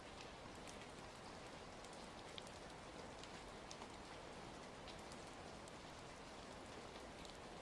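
Faint, steady rain falling, with scattered small sharp clicks through it.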